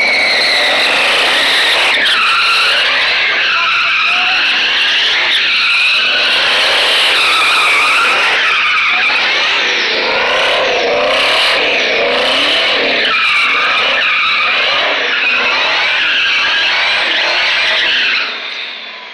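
Tyres squealing without a break as a Ford SVT Lightning pickup spins donuts, its supercharged V8 held at high revs underneath. The squeal wavers up and down in pitch as the truck swings round, then cuts off suddenly near the end.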